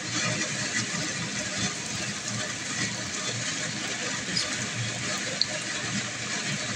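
A flattened round of flour-and-date dough deep-frying in oil in a wok: steady sizzling and bubbling, with scattered crackles and one sharper pop about five and a half seconds in.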